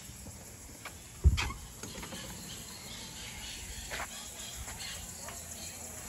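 Scattered short bird chirps over faint insect noise, with one sharp thump about a second in.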